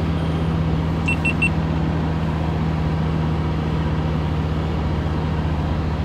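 A vehicle engine running steadily with a low hum, and three quick high beeps about a second in.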